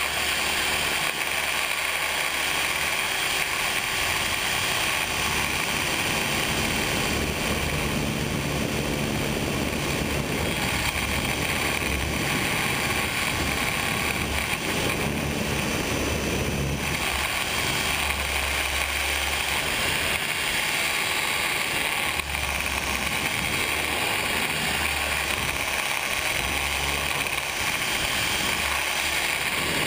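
Radio-controlled helicopter in flight, heard from a camera mounted on the helicopter itself: its drivetrain and rotor make a steady mechanical whine, shifting slightly as it manoeuvres.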